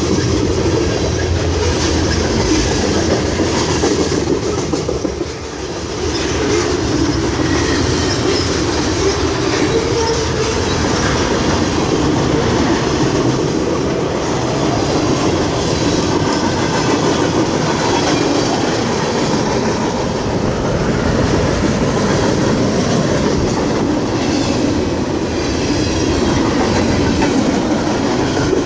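CN freight train's cars rolling past loudly, wheels clacking over the rail joints in a steady rumble, with a brief lull about five seconds in.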